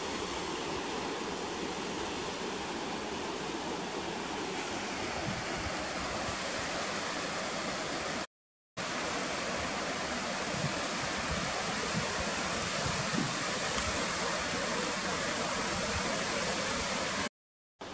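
Rushing mountain stream: a steady, even wash of water noise, broken twice by a brief silence.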